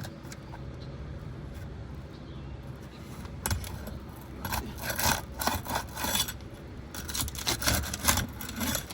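A flat pry bar scraping and rasping under roof shingles as they are worked loose from their seal, in repeated rough bursts starting about three and a half seconds in.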